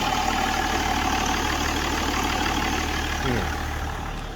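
BMW E39's engine idling steadily with no rattle to be heard, with a brief falling tone about three seconds in.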